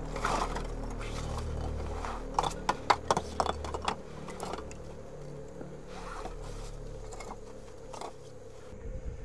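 Footsteps crunching and scraping on loose volcanic rock, with a quick run of sharp clicks about two and a half to three and a half seconds in and a few scattered ones later, over a faint steady hum.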